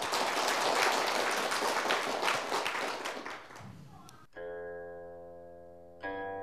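Audience applause for about four seconds, fading away, then plucked-string music begins: a struck note ringing and decaying, and a second note about a second and a half later.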